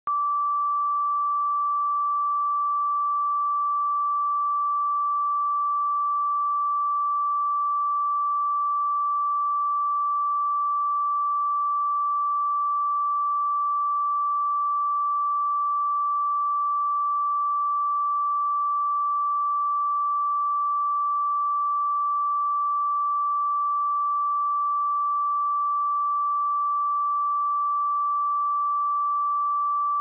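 A pure 1163 Hz sine-wave test tone, one steady high-pitched note held at an even level without change.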